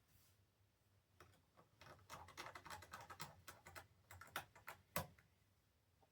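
Small screw being driven into a laptop's metal case with a magnetic screwdriver: a run of faint light clicks and ticks, ending in a sharper click about five seconds in.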